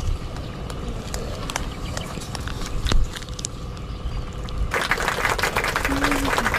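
One sharp airgun shot about three seconds in, over a low rumble and scattered clicks. From about five seconds in, a dense rustling crackle sets in.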